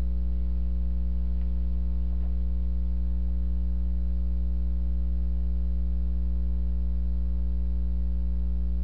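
Steady electrical mains hum: a low, unchanging buzz with a ladder of overtones and nothing else over it.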